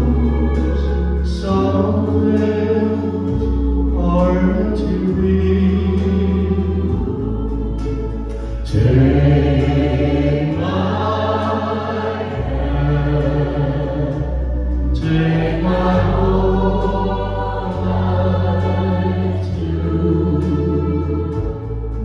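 A mixed choir of women's and men's voices singing a song together over an amplified accompaniment whose bass notes change every second or two.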